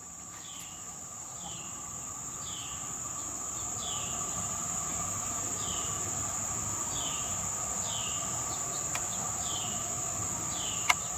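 Insects trilling steadily at a high pitch outdoors, with a short falling chirp repeating roughly once a second. A single sharp click comes near the end.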